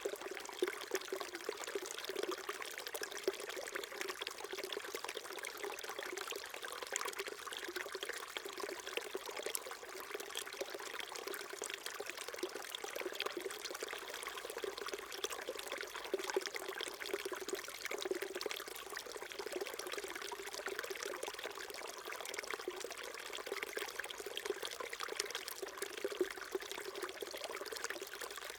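Small mountain stream trickling and babbling over stones, a steady even splashing with no low rumble.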